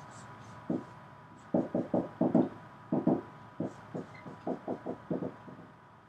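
Dry-erase marker drawing on a whiteboard: a quick series of short squeaky strokes as lines and letters are drawn, beginning about a second in.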